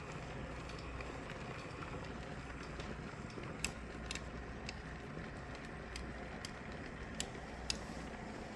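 Handheld garment steamer running, a steady hiss of steam over a low hum, with a handful of sharp clicks in the second half.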